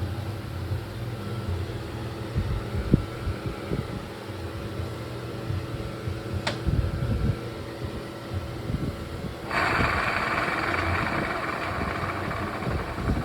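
KYMCO KRV scooter's engine running with its CVT transmission turning, with one sharp click about halfway. About two-thirds of the way through, a louder steady rushing noise comes in: transmission noise of the kind traced to a worn drive-pulley bearing.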